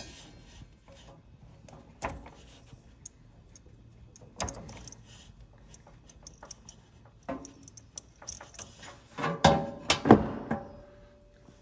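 Scattered clicks and knocks of hands working inside an espresso machine's housing, pulling the wire connectors off the vibratory pump. The loudest cluster of knocks comes near the end.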